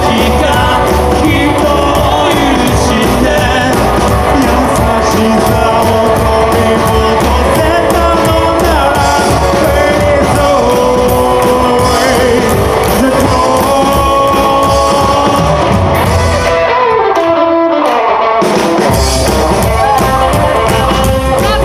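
Live rockabilly band playing with a singer, guitars, bass and drums. About three-quarters through, the drums and bass stop for about two seconds, leaving a falling line, then the full band comes back in.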